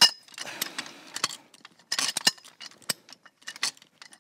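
Metal clinking and jangling from a high-lift ratchet jack with its chain and clamp as the soil access tube is worked free. The clicks come at irregular intervals, with a sharp clank at the start and a quick cluster about two seconds in.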